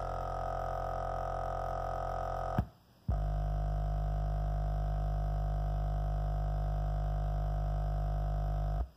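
An 8-inch subwoofer and its passive radiator playing a low bass test tone, with a harsh buzzing distortion on top: nasty mechanical noise from the passive radiator as its cone is driven beyond its excursion limit. About two and a half seconds in, the tone cuts off. After a short gap, a second steady low test tone plays with less of the buzz, until it stops near the end.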